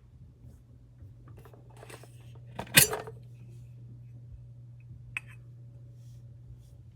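Kitchenware being handled: some clattering, one sharp loud metallic clink about three seconds in, and a lighter click a couple of seconds later, over a low steady hum.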